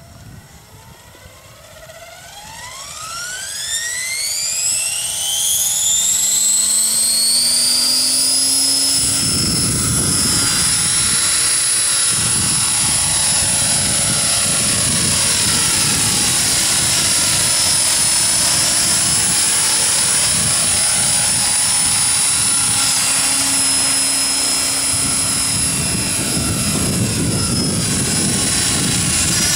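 Align T-Rex 550E electric RC helicopter spooling up. The motor and gear whine rise in pitch over about eight seconds and then settle into a steady high whine, with the rotor wash rushing in loudly from about nine seconds as it hovers and flies.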